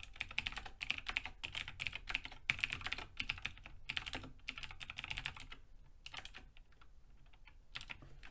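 Typing on a computer keyboard: quick runs of keystrokes, thinning after about five and a half seconds to a couple of short bursts.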